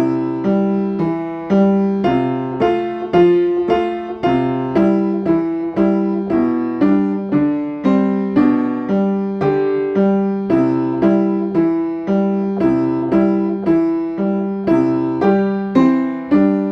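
Piano playing a simple song accompaniment: repeated chords over low bass notes, about two a second, each dying away before the next.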